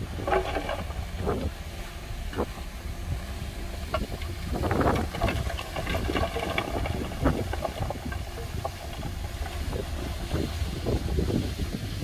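Heavy earthmoving machinery at work: a low, steady diesel engine rumble with scattered knocks and clanks, and wind on the microphone.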